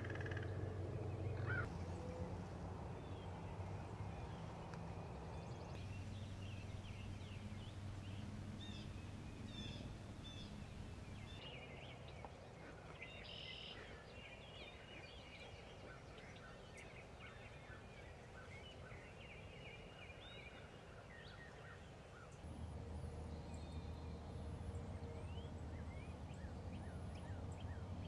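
Faint outdoor ambience of many songbirds chirping and singing over a low steady rumble of wind, with a wild turkey gobbling in the distance.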